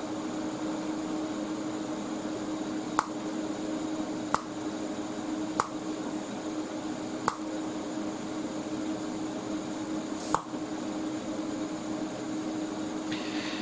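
Parweld XDI 201 TIG welder working steel to cast iron, a steady hum and hiss, with five sharp clicks or pops spread through it.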